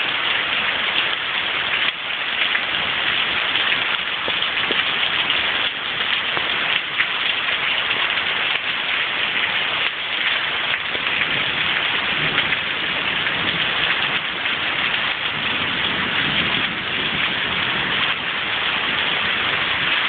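Heavy rain of a thunderstorm falling steadily.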